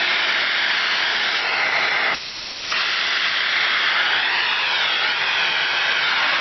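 Vintage Electrolux central vacuum running: a steady rush of air sucked in through the hose. It dips briefly about two seconds in, and a wavering whistle rides on it near the end.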